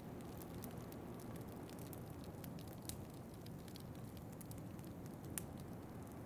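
Wood fire crackling in a fireplace: scattered small pops and ticks over a steady low rush, with one sharper pop about five seconds in.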